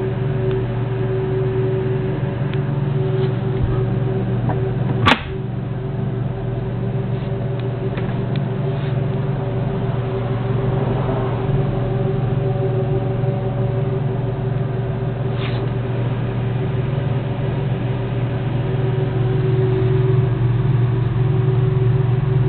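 A steady low hum with a fainter higher tone, like a motor or appliance running. It is broken by one sharp click about five seconds in.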